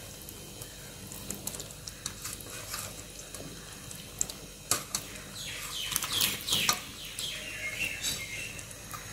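Spicy red fish curry simmering in a pan with small bubbling pops and crackles, while raw anchovies are laid into it by hand with soft wet squelches. The pops and squelches grow busier about halfway through.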